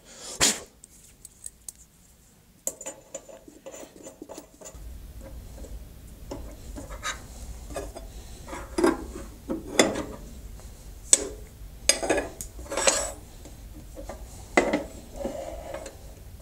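Steel wrenches and tooling clinking and clattering on a metal shaper table, a string of sharp metallic knocks and clinks, as a shaper spindle's collet is re-seated and tightened down. A steady low hum comes in about five seconds in.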